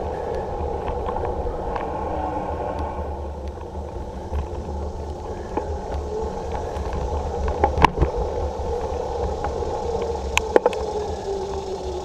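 Bicycle rolling along a paved trail: steady tyre and drivetrain whir over a low rumble, with a few sharp clacks from bumps in the path. Near the end the whir falls in pitch as the bike slows.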